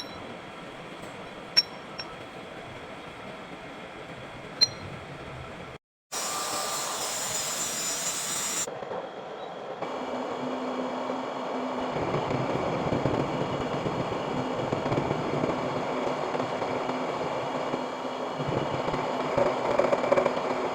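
Machine-shop work on a lathe. First a steady background with two sharp metallic clinks about three seconds apart, then a few seconds of loud hiss that stops abruptly, then a machine running steadily with a low hum, growing louder near the end.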